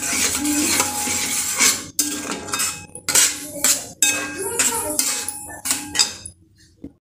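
Steel spatula scraping and stirring a thick milk-and-fig barfi mixture in a stainless steel kadhai, in a run of irregular metal-on-metal strokes that stop about six seconds in. The mixture is being cooked down until it thickens.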